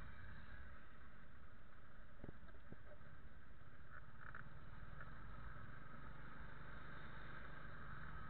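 Steady low rumble of street noise, heard through a small action camera's built-in microphone, with a couple of faint clicks about two seconds in and a brief higher chirp about four seconds in.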